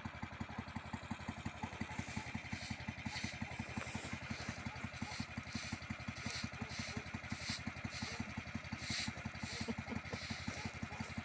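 Small single-cylinder engine of an Uragan Taiga motorized snow tug idling steadily while warming up in the cold, with a fast, even low putter. A faint regular crunch comes about twice a second from about two seconds in.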